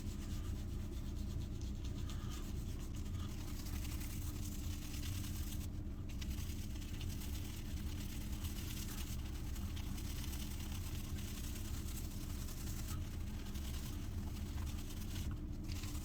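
Badger shaving brush (Simpson Commodore X3) working up shaving soap lather, a soft continuous swishing, over a steady low hum.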